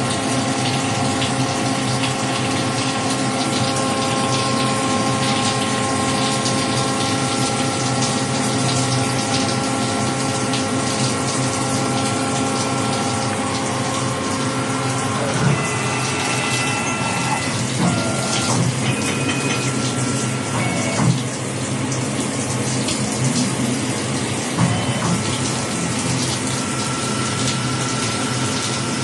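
Emco Turn 220 CNC lathe running: a steady hiss under several whining motor tones. About halfway through the tones change, and a few short clicks and brief higher tones come in.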